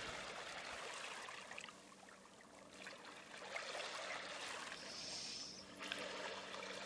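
Faint running water, like a trickling stream, under a low steady hum.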